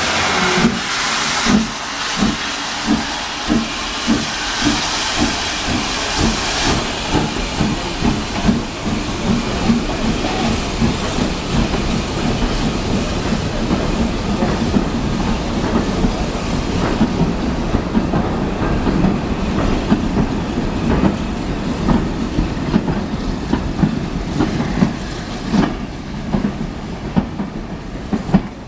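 Steam locomotive pulling away with a train of vintage wooden coaches. A loud hiss of steam and regular exhaust chuffs come first, then the coaches' wheels click over the rail joints as they roll past. The sound falls away near the end.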